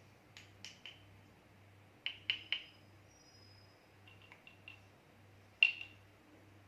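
Baby rattle shaken in short bursts: sharp clicks in small groups, each with a brief ringing tone, the loudest a little past halfway.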